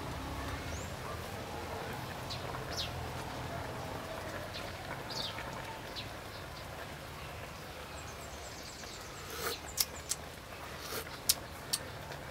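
Birds chirping now and then over a steady low background noise. From about nine seconds in, a run of sharp metal clicks and taps as a ladle knocks against an aluminium cooking pot.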